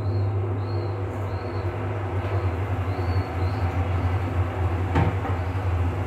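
Steady low mechanical rumble and hum, with a single knock about five seconds in as a kitchen wall-cabinet door is shut.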